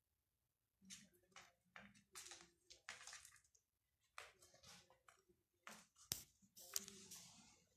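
Kitten scratching and digging in the granular cat litter of a plastic litter tray: a run of short, faint scratchy rustles, with two sharp clicks near the end.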